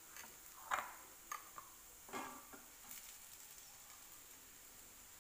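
A spatula scraping and tapping against a cooking pan a few times while mashed potato is scooped into onion masala; the loudest tap comes just under a second in, with a slightly longer scrape about two seconds in, over a faint steady hiss.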